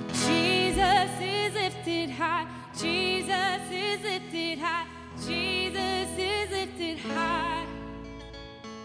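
Live worship band, with a female singer holding long wordless notes with a wide vibrato over the band's sustained chords. About seven seconds in the singing stops and the chords ring on and fade.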